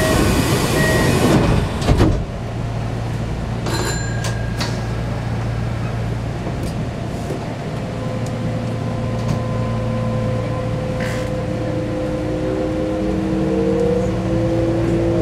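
Kintetsu electric train heard from inside the car, running with a steady low hum. A burst of hiss at the start ends in a sharp clunk about two seconds in. Toward the end a whine from the traction motors rises in pitch as the train picks up speed.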